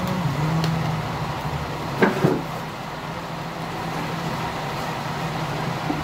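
A motor vehicle's engine runs steadily as a low hum. About two seconds in come two sharp clicks, as the plastic housing of a keypad phone is pried apart.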